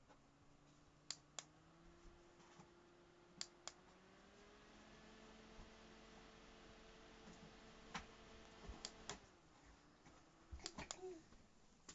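Faint hum of a small battery desk fan's motor, rising in pitch as it spins up over the first few seconds, holding steady, then winding down about nine seconds in. Sharp clicks, mostly in pairs, come at the moments the pitch changes, as from its speed button being pressed.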